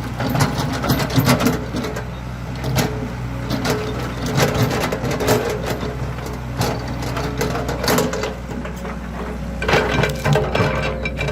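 Excavator's diesel engine running steadily under load, with irregular clanks and knocks from the machine working as it digs.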